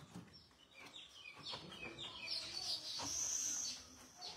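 Small birds chirping in the background, a quick run of short falling chirps again and again, with a louder high-pitched note held for about half a second a little past the middle.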